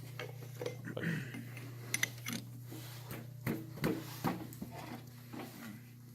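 Metal parts being handled and fitted at a metal lathe: a run of scattered clicks, knocks and scraping over a steady low machine hum.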